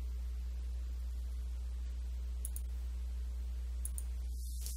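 Two computer mouse clicks, each a quick press and release, about a second and a half apart, over a steady low hum.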